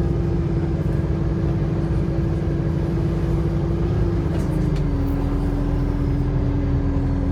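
A bus heard from on board, its engine and drivetrain giving a horrible droning sound: a steady low rumble with a held tone on top that drops a step in pitch a little past halfway through.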